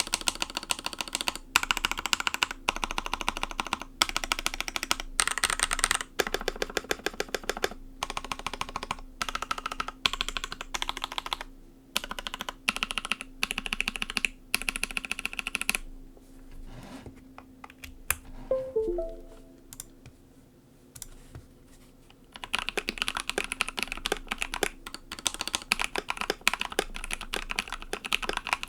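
Typing on a mechanical keyboard fitted with lubed Pixel (Daifen) long-pole linear switches with nylon bottom housings: quick runs of keystrokes, with a pause of a few seconds around the middle before fast typing resumes.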